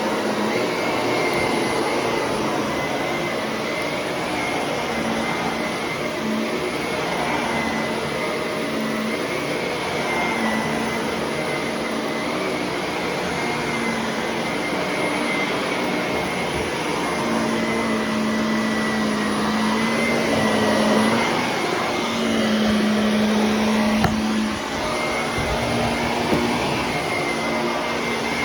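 Shark vacuum cleaner running, a steady rush with a high whine, and a lower hum that swells and fades as it is pushed over the floor.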